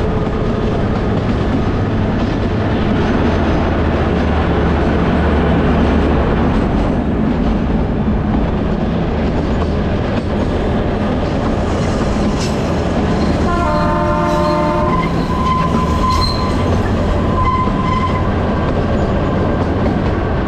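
Kalka–Shimla narrow-gauge toy train running, with a steady loud rumble and clatter of the coaches on the rails. About two-thirds of the way in, the locomotive's horn sounds once for about a second and a half. Two short high squeals from the wheels follow.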